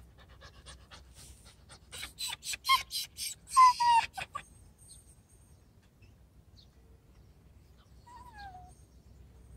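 Puppy panting fast, several breaths a second, the breaths growing louder for a few seconds with a faint whine in the last of them, then stopping.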